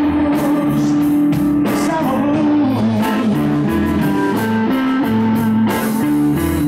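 Live blues band playing: a Stratocaster-style electric guitar, electric bass and drum kit, with a man singing into the microphone.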